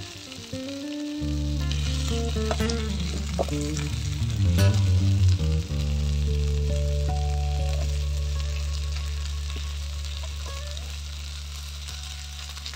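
Indian mackerel (bangda) frying on a flat iron tawa: a steady sizzle. Background music with long held low notes plays under it.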